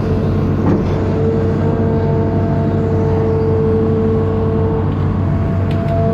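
Amphibious excavator's diesel engine running steadily, a low drone with a steady high whine over it. A couple of light knocks sound about a second in and near the end.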